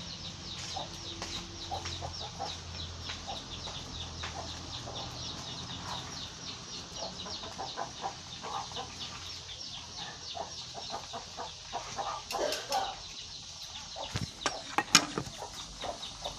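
Chickens clucking, with many quick high chirps throughout, and a few sharp knocks near the end.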